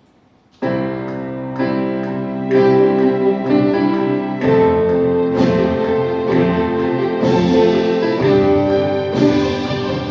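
Computer-sampled orchestral arrangement playing back, layered strings and horns over drums. It starts suddenly about half a second in, with a new chord struck about once a second.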